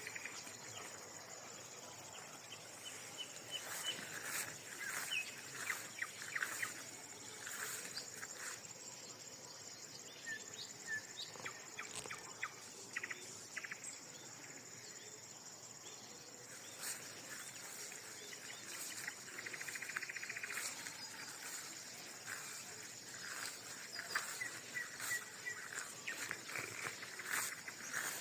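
Faint outdoor ambience: a steady high insect drone with scattered bird chirps, and short clicks and rustles throughout.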